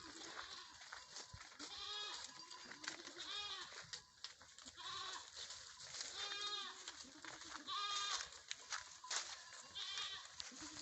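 Goats bleating repeatedly: about six separate calls, each rising and falling in pitch, with scattered short clicks between them.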